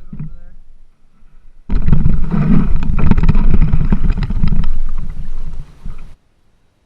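Kayak being moved and launched: a loud stretch of knocking and scraping against the hull. It starts suddenly and is cut off abruptly.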